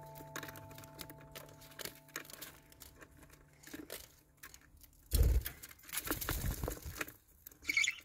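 Budgies' feet pattering and scratching on a newspaper-lined cage floor, with paper crinkling. About five seconds in, a louder thump and rustle as a budgie hops up onto a clear acrylic nest box.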